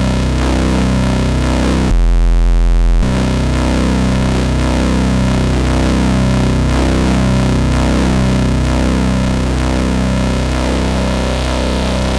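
Astrogorus synthesizer playing a distorted, rhythmic noise drone: a steady deep bass under a dense stack of pulsing tones. About two seconds in, the upper tones cut out for about a second, leaving only a louder deep bass, then the full texture returns.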